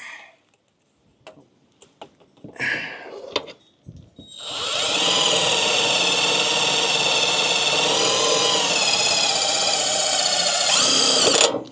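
Electric drill running for about seven seconds, its motor whine dipping partway through and rising just before it stops suddenly. A few light handling clicks come before it starts.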